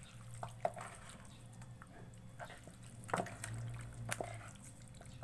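Chicken wings being mixed by hand in a wet marinade: a few short squelches and clicks, with a steady low hum underneath.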